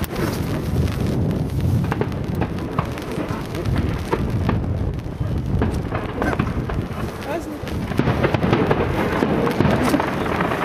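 Fireworks display: aerial shells bursting in a dense, continuous run of rolling booms, with many sharp cracks and crackle over them.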